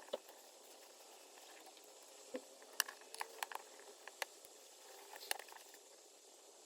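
Scattered light clicks and taps of small switch parts being handled as a Triumph TR7 wiper switch is taken apart and refitted, the sharpest click about three seconds in.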